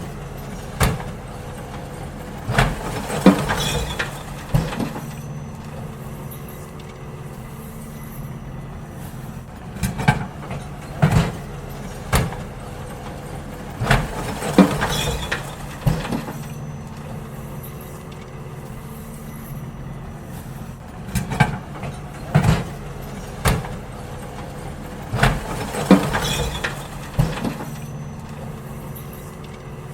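Garbage truck engine running steadily while bins are emptied into it. Three bursts of sharp clanks and bangs, about ten seconds apart, sound over the engine.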